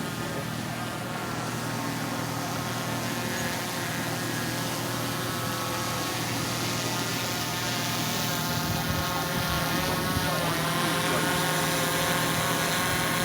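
A motor running steadily, growing a little louder in the second half.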